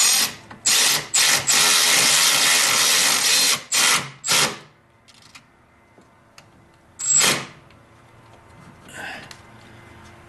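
Cordless electric ratchet running in several short bursts and one run of about two seconds, then two more short bursts and one more a few seconds later. It is driving in the bolt that fastens the bumper-support bracket to the frame.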